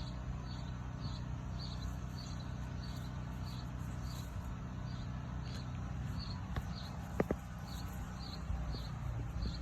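Cricket chirping steadily in short, evenly spaced chirps, about two a second, over a low rumble. About seven seconds in comes a short, sharp double sound, the loudest moment.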